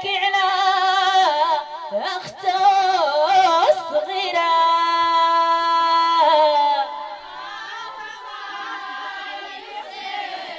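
A woman singing a traditional Jebli wedding song unaccompanied, with wavering ornamented notes and one long held note in the middle. After about seven seconds the singing gives way to quieter background voices.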